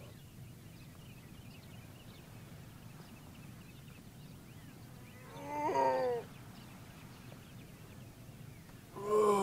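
Two drawn-out, voice-like cries over a faint steady hiss, each falling in pitch. The first comes about five seconds in; the second, louder and longer, comes near the end.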